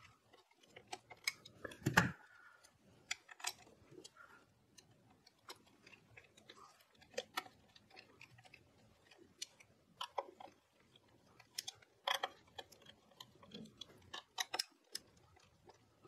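Small screwdriver turning the Noctua NH-L9i cooler's mounting screws in through the back of a motherboard: faint, irregular clicks and ticks of the driver and screws, with a louder knock about two seconds in.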